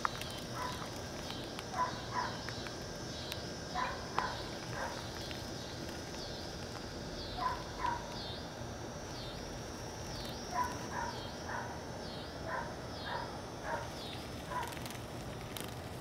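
Insects chirping in a steady, high-pitched chorus at dusk, pulsing about twice a second. Over it come short, sharp animal calls in groups of two to five, and these are the loudest sounds.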